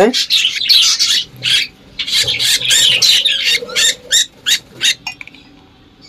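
Budgerigars giving a quick string of short, raspy squawks that stop about five seconds in.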